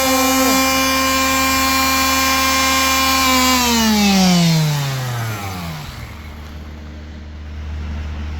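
A motor-driven machine running with a steady whine, then shut off about three and a half seconds in and spinning down in a smoothly falling whine that dies away over about two seconds, leaving a low steady hum.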